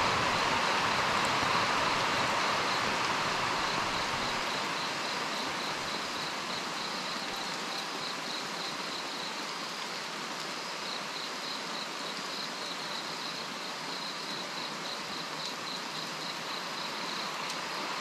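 Steady rain falling onto a swimming pool's water and the paving around it, a continuous even hiss. A high, fast-pulsing insect chirp runs under it.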